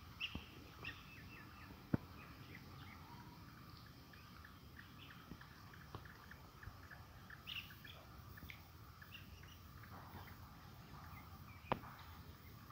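Small birds chirping in short, scattered calls. A couple of sharp clicks stand out, one about two seconds in and one near the end.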